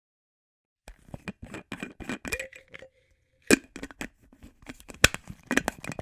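A container lid being handled and worked open: a run of sharp clicks and scrapes starting about a second in, with a brief tone partway through and two louder snaps, one near the middle and one later on.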